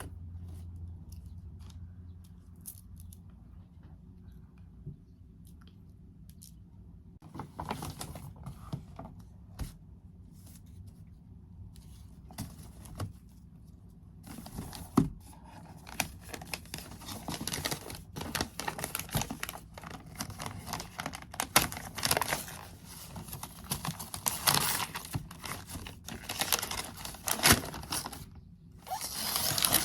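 Crinkling and tearing of packaging with scattered small clicks. It is sparse at first and turns busy and continuous about halfway through.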